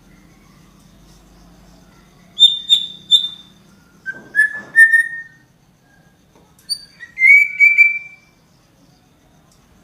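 A songbird singing loud, clear whistled phrases: first a quick run of three high notes, then three lower notes stepping upward, then a longer slurred whistle.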